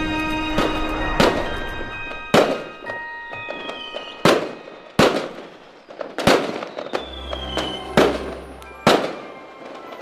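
Fireworks bursting, about nine sharp bangs spread over the stretch, with a couple of falling whistles between them. Orchestral music plays underneath and fades after the first second or two.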